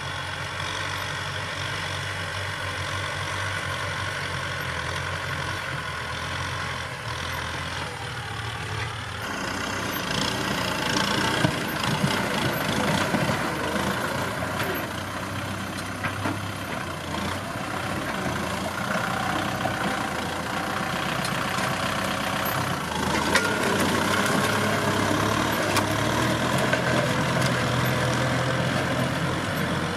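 Kubota M6040SU tractor's four-cylinder diesel engine running steadily under load while it pulls a disc plough through dry soil. The sound shifts abruptly about a third of the way in and again later, with more scraping noise after the first shift.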